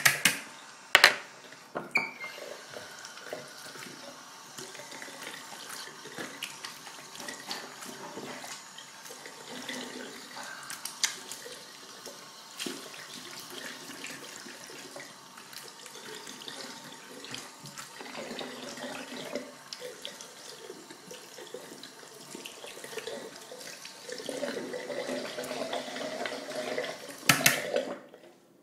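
Water running from a tap into a sink in a steady stream, with a few sharp knocks in the first couple of seconds and again near the end; the flow stops just before the end.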